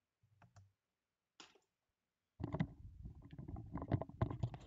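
Handling noise: a few faint clicks and a brief scrape, then from about two and a half seconds in a dense, irregular run of clicks and knocks with low thumps.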